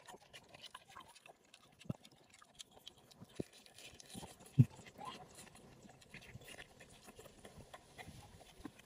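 Close-up eating sounds of a person chewing fried three-layer pork belly: scattered wet mouth clicks and smacks, with one louder low thump about halfway through.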